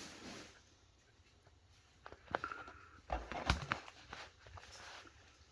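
Handling noises: a quiet stretch, then a cluster of clicks and knocks from about two seconds in, the loudest about three and a half seconds in, as objects are picked up and moved.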